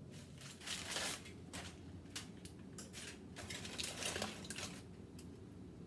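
Light clatter and rustling of a foil-covered metal broiler pan being handled and set into an oven, in a series of short scraping and crinkling sounds.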